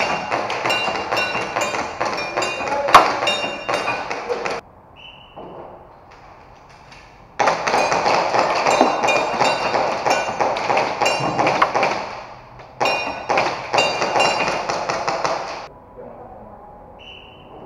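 Rapid strings of airsoft pistol shots with BBs pinging off metal targets, in three spells of fire separated by short pauses, over people talking.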